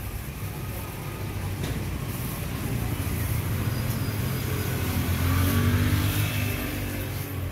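A motor vehicle's engine passing close by on the street, growing louder and rising in pitch to a peak about five to six seconds in, then fading slightly.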